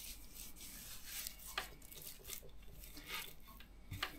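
Gloved hand rubbing dry spice rub into a raw kassler pork neck on a wooden cutting board: faint, irregular rubbing strokes with a few light clicks.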